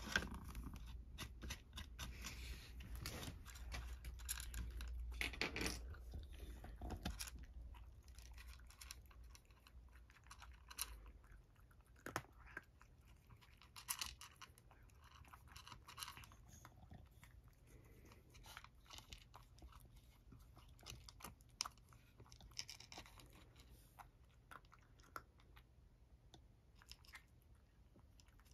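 A cat chewing and crunching dry kibble with irregular small crunches, louder and busier in the first several seconds, then fainter.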